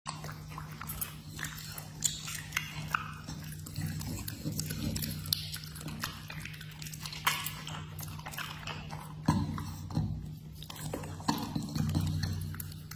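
A pit bull-type dog licking and chewing raw meat close to the microphone: a run of wet smacks and sharp clicks of its jaws and tongue, over a steady low hum.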